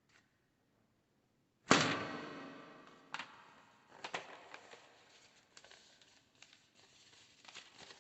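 Folded paper popper (paper cracker) whipped open with one sharp, loud crack about two seconds in, the sound dying away over about a second, followed by faint paper rustling and small clicks.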